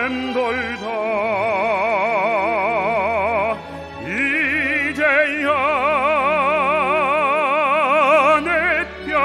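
Orchestral music: a long held melody line with wide, regular vibrato over sustained accompaniment, with short breaks between phrases about three and a half seconds in and near the end.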